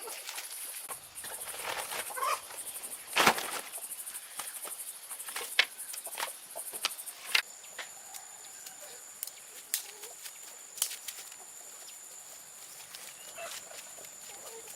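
Chickens clucking now and then over a steady high insect drone, with sharp knocks every second or two, the loudest about three seconds in.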